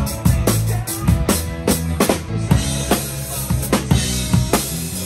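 Live rock band playing: a drum kit keeps a steady beat of kick and snare under bass and electric guitars, with cymbals washing in about halfway through.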